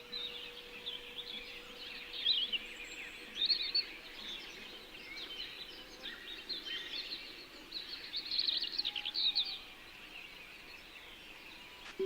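A chorus of small songbirds chirping and trilling, with many quick high calls overlapping and louder bursts a couple of times. A singing bowl's sustained hum fades away in the first half.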